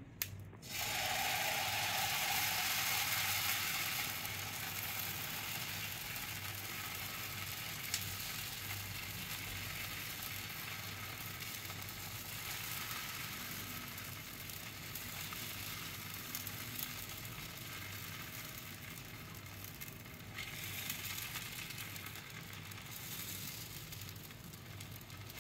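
Dal chilla batter sizzling on a hot oiled tawa as it is poured on and spread round with a steel ladle. The sizzle starts loud about half a second in, then settles to a steady hiss that swells a little again past twenty seconds.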